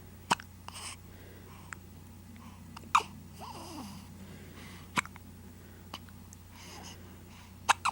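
Baby hiccuping: four sharp hiccups, about two to three seconds apart, with soft breathing between them.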